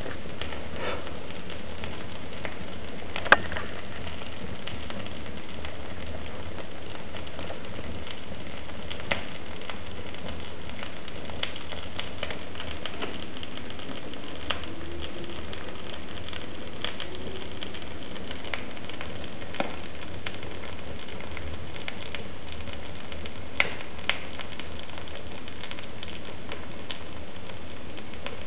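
Wood fire burning a leather boot in a stove's open firebox: a steady rush of flame with scattered sharp pops and crackles, the loudest about three seconds in.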